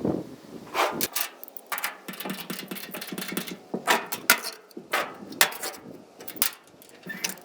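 A string of irregular knocks, clunks and scrapes from rigging work around a machine, the loudest hits coming about every second.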